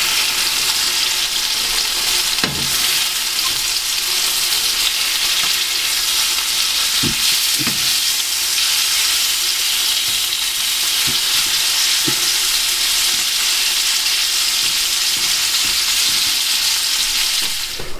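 Chicken breast searing in hot oil in a frying pan: a steady, loud sizzle, with a few faint knocks along the way.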